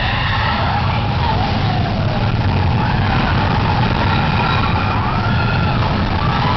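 Big Thunder Mountain mine-train roller coaster running along its track with a steady low rumble, and high wavering wails that rise and fall over it.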